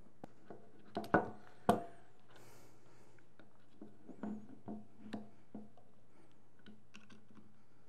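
Hard little clicks and taps of prosthetic forearm rods and a hex screwdriver being handled on a wooden workbench: two sharp clacks between one and two seconds in, then lighter scattered ticks.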